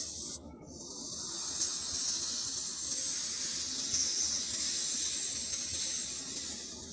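Cobra hissing: one long, steady hiss that starts again after a short break about half a second in.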